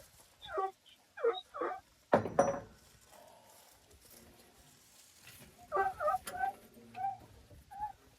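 Short, pitched animal calls in small clusters, with one loud knock about two seconds in.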